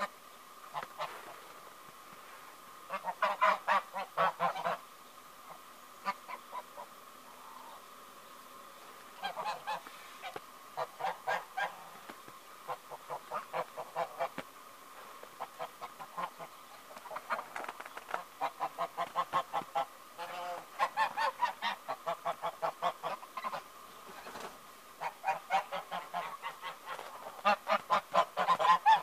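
A flock of white domestic geese honking in repeated bouts of rapid, pulsing calls, with short pauses between the bouts; the calling is loudest near the end.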